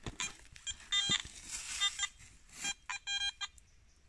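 Garrett metal detector giving short electronic target beeps as its coil sweeps over a freshly dug hole: one longer tone about a second in, then a quick run of short beeps, showing the metal target is still in the loosened soil. A shovel scrapes and crunches into earth and dry leaves at the start.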